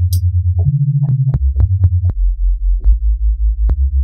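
NI Massive software synthesizer playing a jungle sub bass: a low sine tone wobbling in level several times a second, from two detuned unison voices beating against each other. It is played as a short run of low notes that step up and back down, with a small click at each note change.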